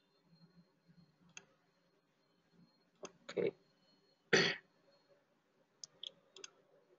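A man briefly clearing his throat about four seconds in, with a few soft computer mouse clicks before and after.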